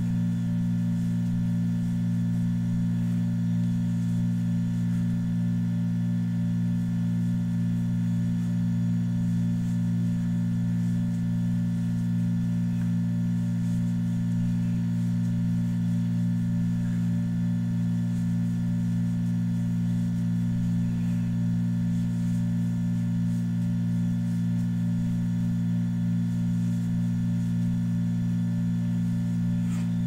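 A steady low hum that holds one level and pitch without change.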